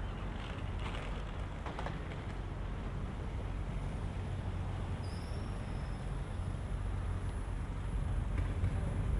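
City street traffic heard from a moving bicycle: a steady low rumble of passing vehicles, with a few light clicks in the first two seconds. It grows louder near the end.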